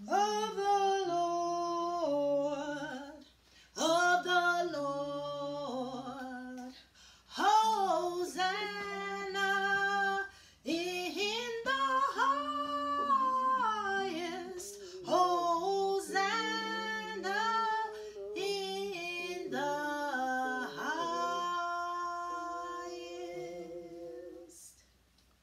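A woman singing a hymn solo and unaccompanied, in long phrases of held notes with short breaks for breath; the singing fades out shortly before the end.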